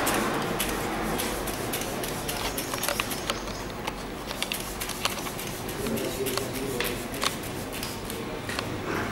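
A microfiber cloth rubbing and wiping over a car's painted body panel in a waterless dry wash, with many scattered light clicks and a low steady hum underneath.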